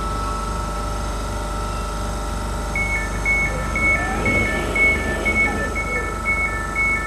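Class 701 train's sliding passenger doors opening, with the door warning beeping in a repeating high-low two-tone pattern about twice a second from about three seconds in. A steady hum from the standing train runs underneath.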